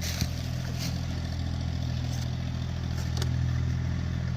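A steady low engine hum, as of a motor idling, with a few faint clicks and clatters over it.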